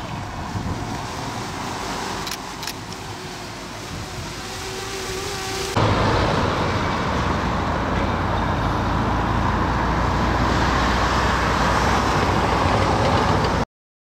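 Outdoor roadside ambience with traffic noise, two sharp clicks and a faint rising whine. About six seconds in it cuts to a louder steady rushing noise with a low hum, which stops abruptly just before the end.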